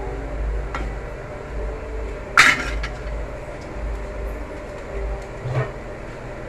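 Metal spoon clinking against an aluminium pot and a glass bowl as kheer is spooned out: a faint click, one sharp loud clink about two and a half seconds in and a softer one later, over a steady low hum.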